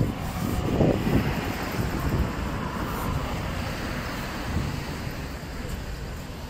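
Street traffic noise: a steady wash of passing vehicles, loudest about a second in.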